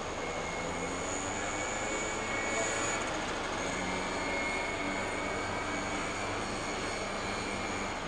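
A large motor yacht's engines running at low speed while manoeuvring to dock: a steady drone with a faint high whine over it.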